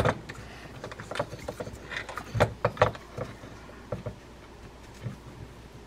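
Scattered small clicks and taps of metal parts as a Daiwa SeaLine SL20SH conventional reel is worked apart by hand, the eared washer being worked off its gear shaft. The clicks come thickest about two and a half seconds in and thin out after about four seconds.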